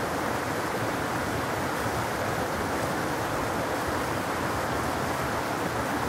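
Shallow mountain stream babbling over rocks in a small cascade: a steady rush of water.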